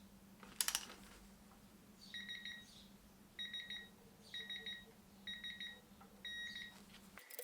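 A sharp click, then an electronic beeper sounding five short pulsed beeps about a second apart: a digital torque wrench signalling that the set torque of 20 newton metres has been reached on a gearbox bolt.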